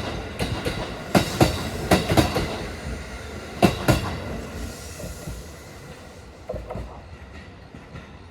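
Wheels of a JR East E233 series 3000 electric multiple unit passing over rail joints: sharp clacks, mostly in pairs, a few per second during the first four seconds. After that the clacks grow fainter as the train moves off, with a few faint ones near the end.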